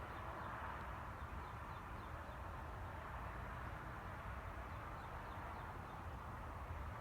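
A steady, unexplained droning noise in the open air, with faint short chirps repeating above it.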